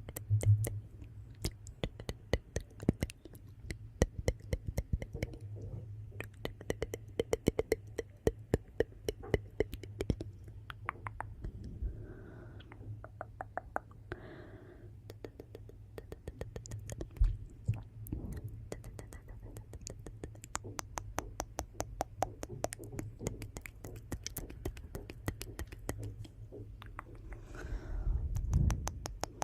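Wood fire crackling in a fireplace: a steady stream of sharp pops and snaps over a low rumble, with a few soft breathy swells.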